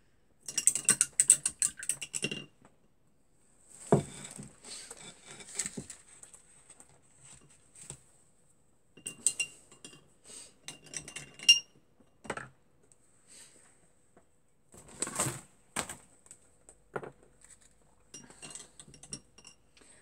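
Paintbrushes and small hard art supplies clinking and clattering on a cluttered work table as they are picked up and handled, in several bursts of clicks with short quiet gaps between.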